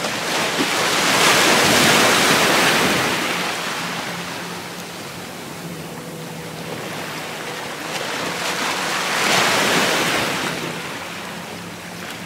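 Surf breaking and washing over jetty rocks, swelling in two surges: a long one about a second in and another near the end.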